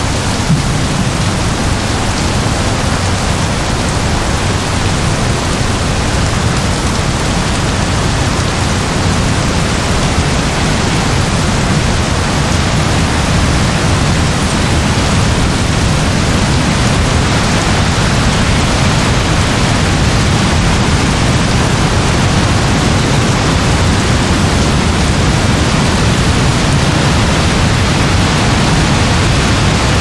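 Heavy rain falling steadily: a dense, unbroken hiss with plenty of low-end weight and no separate drops or thunderclaps standing out.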